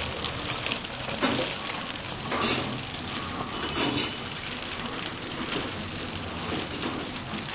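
Packing machine running, with sealed plastic packets dropping now and then onto a rustling pile in a cardboard box.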